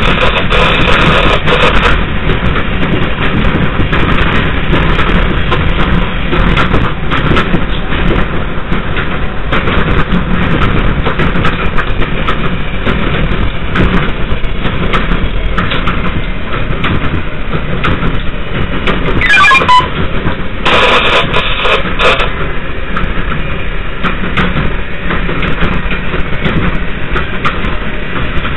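New York City IRT subway train on the 5 line running along elevated track, heard from the front cab: a loud, steady rumble and rattle of wheels and motors. About two-thirds of the way through comes a short falling whine.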